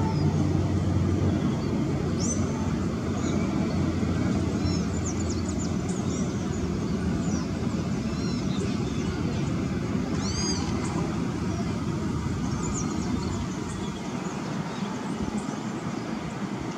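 ATR twin-turboprop airliner flying over on approach to land: a steady rumbling drone with a low propeller hum that fades in the first couple of seconds, the whole sound slowly dying away near the end as it moves off. Birds chirp repeatedly over it.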